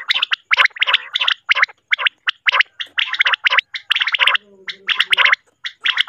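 Common quail calls: a fast run of harsh, rasping notes, several a second, with a short low hum about four seconds in.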